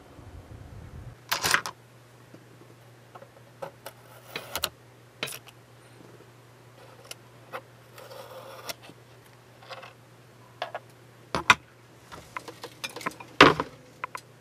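Hands handling a plastic scale ship model, with scattered clicks, taps and light scraping of fingers, masking tape and a metal tool against the hull and deck. The sharpest clicks come near the start and twice near the end, over a faint steady low hum.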